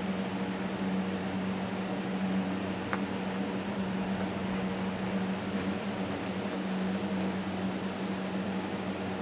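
Steady mechanical hum of building ventilation fans, an even rushing noise over a constant low drone.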